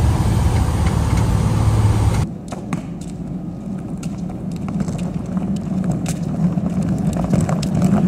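Small plane's engine running loud and steady inside the cabin as it rolls along the runway. It cuts off abruptly about two seconds in, giving way to the clicking and rattling of wheeled hard cases pulled over concrete.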